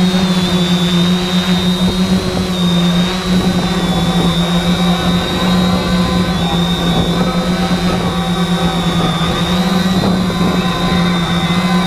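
Multirotor drone's motors and propellers running steadily, heard close up through its own onboard camera: a strong hum with a high whine above it, the pitch shifting slightly now and then as the drone manoeuvres.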